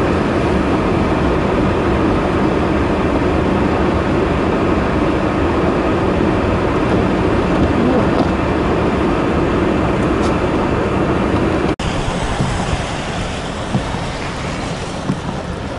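Snowplow truck running close by, a steady engine-and-road noise. It cuts off abruptly about twelve seconds in and gives way to quieter, rough wind-like noise with a few short thumps.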